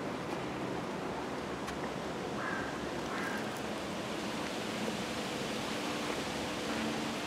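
Steady outdoor background noise, an even wind-like hiss, with two faint short chirps about a third of the way in.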